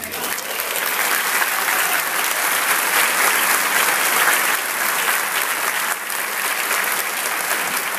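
Concert audience applauding at the end of a piece, a dense, steady clapping.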